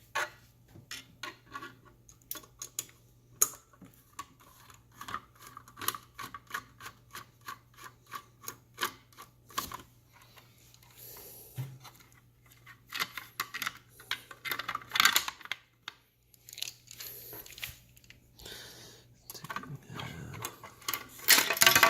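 Small metal hand tool working bolts out of a Wahoo Kickr trainer's housing. Repeated sharp metallic clicks, several a second, give way in the second half to scraping and clattering of metal parts.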